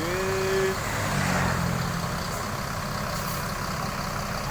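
A heavy road vehicle's engine drone and tyre noise in steady traffic, with the engine strongest between one and two seconds in. It follows a short pitched tone in the first second that rises and then holds.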